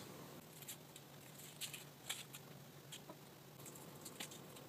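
Foil wrappers being peeled off Cadbury Creme Eggs: faint, scattered crinkling in small clusters.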